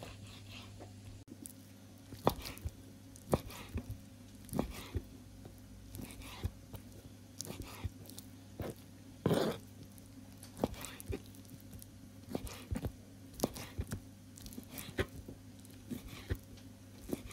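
Kitchen knife dicing raw chicken breast on a wooden cutting board: a string of short, irregular knocks as the blade goes through the meat and hits the board, about one to two a second, the loudest about nine seconds in. A steady low hum runs underneath.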